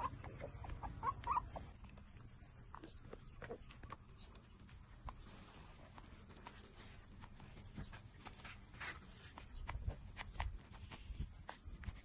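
Faint, irregular smacking and clicking of puppies feeding, lapping and suckling, with a few short puppy whimpers near the start.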